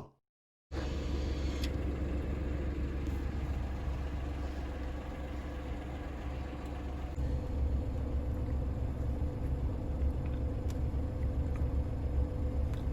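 Steady low rumble of a car, heard from inside the cabin while it runs.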